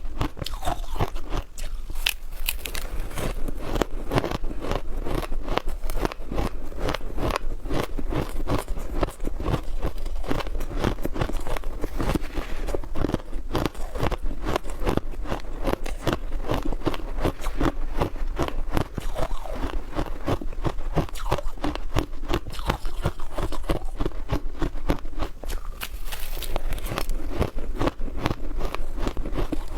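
Ice being bitten and chewed close to the microphone: dense, continuous crunching made of rapid sharp cracks.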